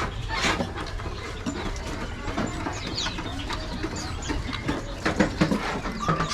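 Many caged birds chirping and calling over one another, with short rising and falling notes, among scattered clicks and knocks.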